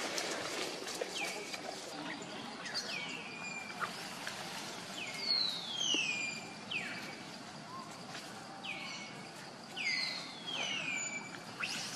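A bird calling over and over, about once a second: each call is a clear whistle that slides down and then holds briefly at the bottom, and a few calls are drawn out longer. Faint ticks and rustles sound underneath.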